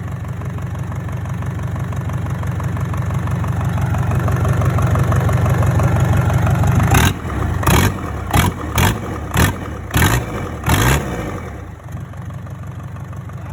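Freshly rebuilt Hyundai D4DC four-cylinder diesel engine running, slowly getting louder, then about seven short, loud bursts over some four seconds before it settles back to a steady idle.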